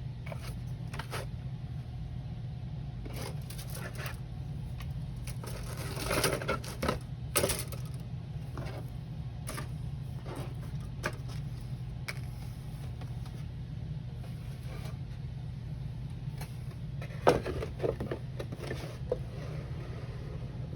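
Handling noises from a model-kit manual and packaging: scattered light clicks and paper or plastic rustles, loudest about six to seven seconds in and again near seventeen seconds, over a steady low hum.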